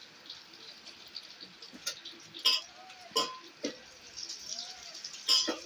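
A few sharp clinks and knocks, the loudest about two and a half and five and a half seconds in, with faint short calls from goats between them.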